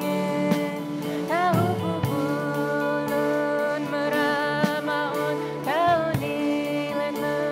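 A woman singing a slow song over plucked sape' (Bornean lute) accompaniment, holding long notes with two swooping slides in pitch.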